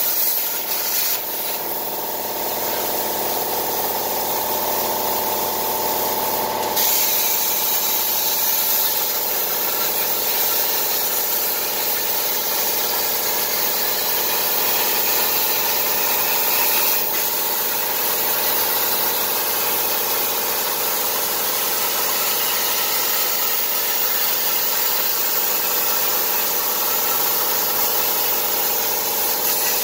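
Everlast PowerPlasma 60 plasma cutter's arc hissing steadily through a CNC machine torch as it cuts a metal sheet.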